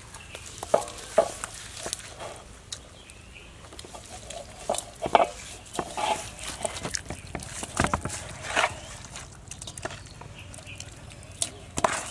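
Hands rubbing chopped shallot, garlic and chili seasoning into whole fish in a metal basin: irregular wet squishing and rubbing, with scattered clicks and taps.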